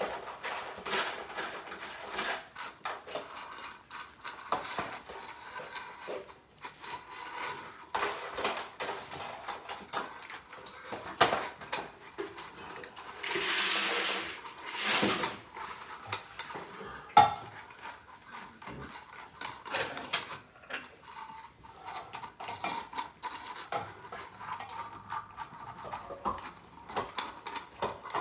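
Dishes, cans and a metal utensil clinking and scraping with many small irregular knocks, as wet cat food is handled and mixed. A rush of noise lasting about two seconds comes about halfway through, and a single sharp clink follows a few seconds later.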